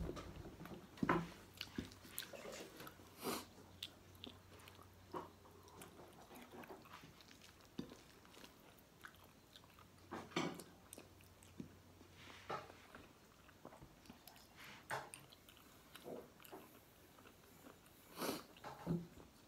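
Chewing and lip smacking of a person eating fried fish and rice by hand: irregular wet mouth clicks and smacks, a few of them louder.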